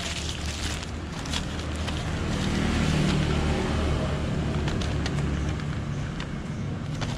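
An engine running steadily, getting louder for a couple of seconds around the middle and then easing off, with a few light clicks over it.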